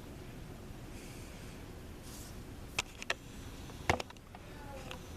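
A 1984 Casablanca Panama 5 ceiling fan with five blades running steadily on speed 5, a low even hum and rush of air. A few sharp clicks come near the middle, the loudest about four seconds in.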